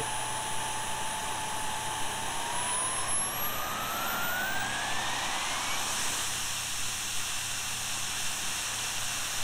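Jet Central Rabbit kerosene model jet turbine whining at idle, then spooling up from about two seconds in, its whine rising steadily in pitch as the RPM climbs under throttle.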